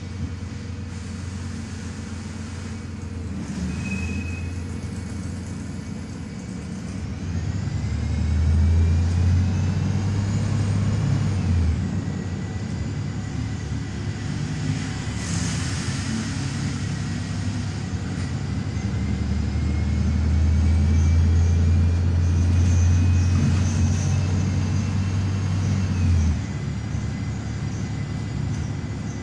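Cabin sound of a Volvo B290R city bus under way: the diesel engine's low drone swells twice as the bus accelerates, a faint whine rising slowly in pitch each time, then drops away suddenly. A brief hiss comes about halfway through.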